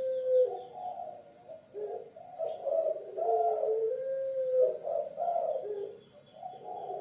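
Puter pelung dove cooing: a run of throaty, wavering coos, one drawn out into a long steady note about four seconds in.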